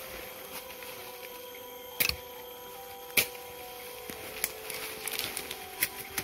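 Footsteps through forest undergrowth: about five sharp cracks of twigs and debris underfoot, the loudest about two and three seconds in, with light rustling between them. Under them runs a steady background of several faint held high tones.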